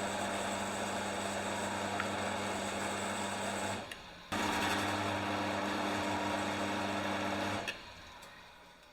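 Electric welder buzzing on steel in two bursts, with a half-second break between them. The second burst cuts off sharply.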